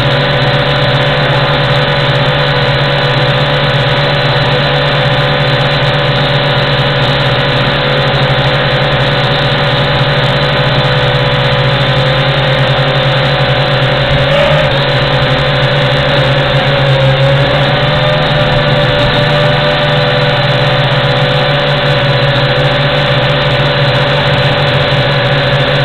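WLToys Q222G quadcopter's motors and propellers buzzing steadily in flight, heard from the drone's onboard camera. The pitch wavers briefly about halfway through.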